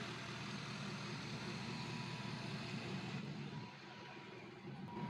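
Diesel truck engine idling steadily with an even low rumble. It drops away for about a second, three and a half seconds in, then returns.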